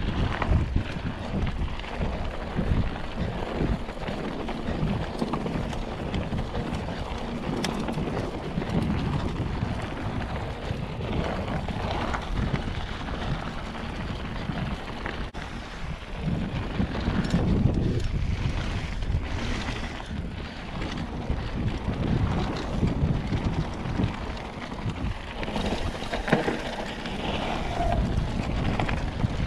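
Mountain bike riding fast down dirt singletrack: wind buffeting the microphone, with the knobbly tyres rolling over gravel and the bike rattling over bumps in many short irregular knocks.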